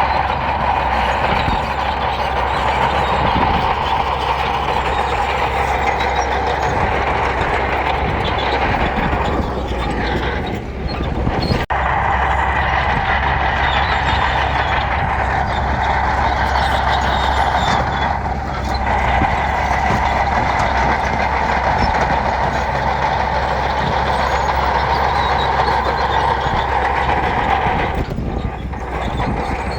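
Heavy diesel earthmoving machinery, a bulldozer at work on gravel, running steadily and loudly, with a brief dip about eleven seconds in.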